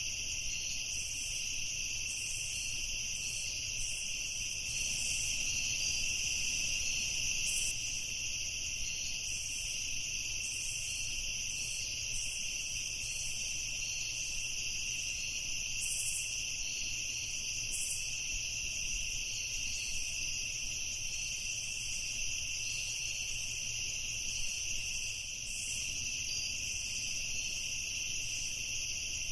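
Night chorus of crickets: a steady, high-pitched trilling that does not let up, with a faint low rumble underneath.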